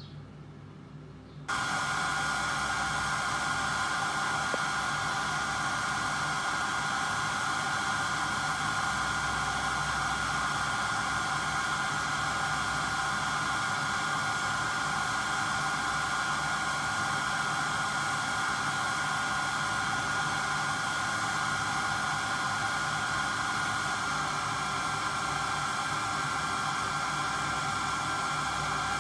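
Santoker Q5 coffee roaster running during a roast: a steady rush of air from its fan and drum, with a constant high whine on top. It cuts in abruptly about a second in, and the whine drops slightly in pitch near the end.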